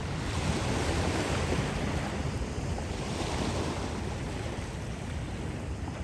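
Calm ocean surf washing onto the shore: a steady wash of small waves that swells about a second in and again midway, then eases.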